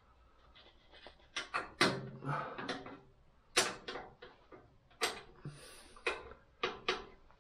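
Irregular metallic clinks and knocks of a spanner and bolts against the metal cabinet stand of a Boxford lathe as the stand's bolts are fitted and tightened. About a dozen sharp strikes, some ringing briefly.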